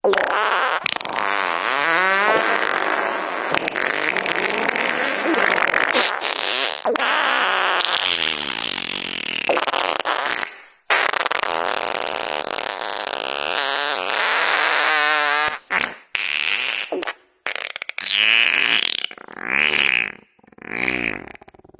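A long, drawn-out farting sound that wavers up and down in pitch, breaking off briefly about eleven seconds in. In the last few seconds it gives way to a string of short, separate farts.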